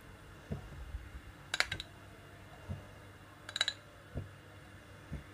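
Spoon scooping ghee out of a bowl into a pan, clinking against the bowl: two sharp clinks about two seconds apart, with a few softer knocks between them.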